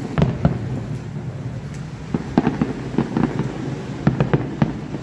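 Aerial fireworks display going off: a rapid, irregular run of bangs and crackles as shells burst.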